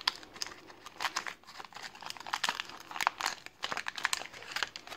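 Foil wrapper of a 1990 Leaf baseball card pack crinkling and crackling as it is torn open by hand, a dense run of irregular sharp crackles.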